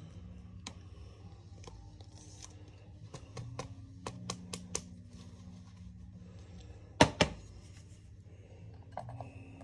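Trading cards and plastic penny sleeves being handled: scattered small clicks and rustles, a quick run of clicks around four to five seconds in, and a sharp double knock about seven seconds in, over a steady low hum.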